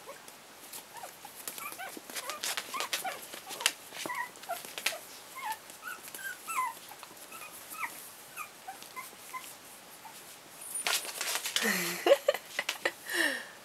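Four-week-old chihuahua-pug cross puppies squeaking and yipping in play, many short high squeaks with quick pitch bends and scattered light clicks. Near the end comes a louder, noisier scuffle with a cry that falls in pitch.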